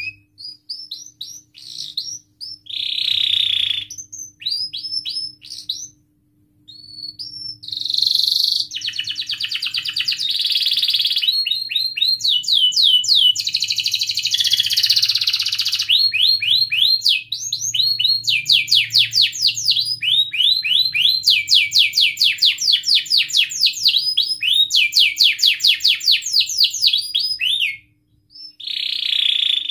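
Domestic canary singing a long, loud song of fast rolls of repeated high notes, phrase after phrase, with a short pause about six seconds in and another near the end.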